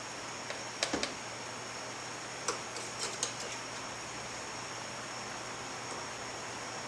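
A few light clicks and taps of small steel transmission parts being handled on the bench during reassembly, two near one second in and a cluster around three seconds, over a steady background hiss.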